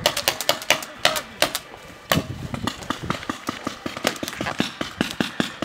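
Paintball markers firing a rapid, irregular string of sharp pops, several a second, growing denser about two seconds in.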